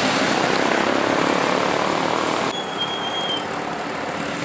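Heavy road traffic: large intercity buses and motorcycles passing close by, a steady rumble of engines and tyres. About halfway through the sound cuts to a slightly quieter pass of a single bus, with a brief high squeal.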